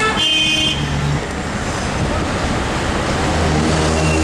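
Busy street traffic heard from inside a car: a vehicle horn honks briefly at the start, then steady road noise, with a low engine hum rising near the end.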